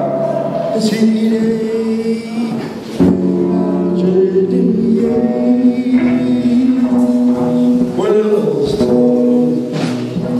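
A man singing into a microphone, holding long notes with short breaks between phrases.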